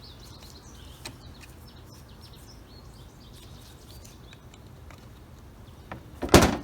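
Small birds chirping faintly over a steady low hum, with a small click about a second in and a single loud knock near the end.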